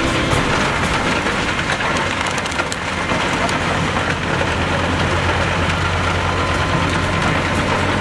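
Pezzolato PTH 1200/1000 drum wood chipper, driven from a Fendt tractor's PTO, running under load and chipping wood: a steady low hum under a dense, even hiss.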